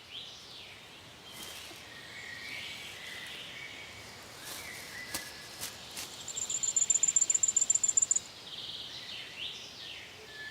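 Forest ambience with small birds calling in short chirps and slurred notes, and a rapid high trill of about nine notes a second lasting about two seconds midway, the loudest sound.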